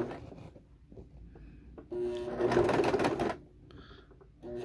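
Electric sewing machine zigzag-stitching a coil of cotton rope and knitted I-cord, running in short bursts. It runs once for about a second and a half, starting about two seconds in, and starts again just before the end. Light handling ticks fall between the runs.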